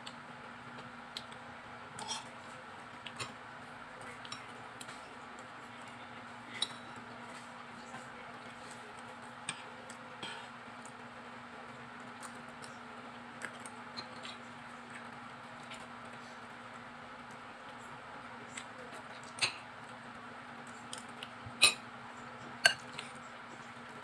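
Spoon and fork clinking and scraping against a plate during a meal: scattered light clicks, the loudest few near the end, over a steady low hum.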